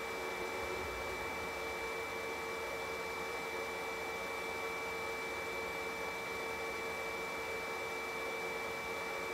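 Steady hiss with a constant electrical-sounding hum at two fixed pitches.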